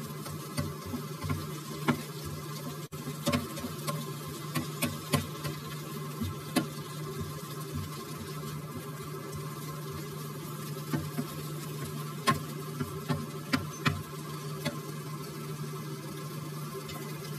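Diced bacon and onion sizzling in a nonstick frying pan over a steady low hum, with a plastic spatula clacking and scraping against the pan at irregular moments as the pieces are stirred, most often in the first seven seconds and again from about eleven to fifteen seconds.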